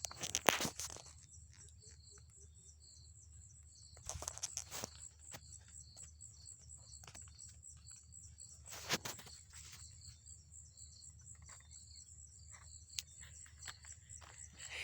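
Outdoor animal chirping: a rhythmic row of high chirps, about two to three a second, over a steady high-pitched drone, with a few brief knocks and rustles.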